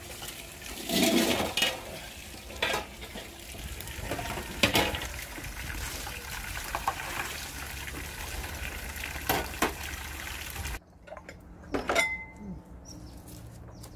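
Stainless steel bowls and a spoon clattering in a basin while water is scooped and poured over them, with repeated sharp clinks. Near the end it gives way to a quieter stretch with a few light clicks.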